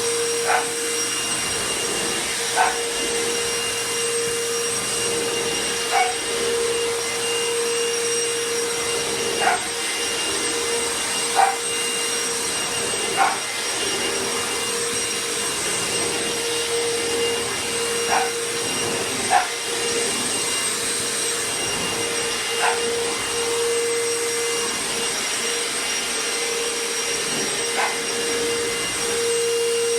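Royal ProSeries Quick Rewind upright vacuum running steadily, its motor giving a constant whine. A dog barks singly about ten times over it, each bark short and a few seconds apart.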